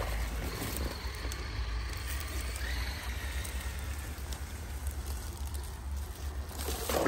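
Traxxas TRX-4 RC crawler trucks driving through a shallow stream, with a faint electric motor whine that rises about three seconds in over water and wet-leaf noise. Near the end a louder splash and rustle as one truck comes close.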